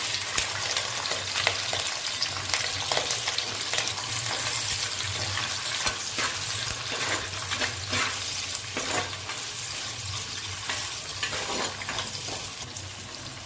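Sliced onions and green chillies sizzling in hot oil in a clay pot, stirred, with irregular scrapes and taps of the stirring spoon against the pot.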